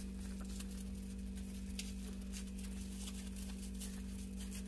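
Steady low hum, with faint scattered ticks and crinkles of a thin plastic bag of milk being twisted and knotted by hand.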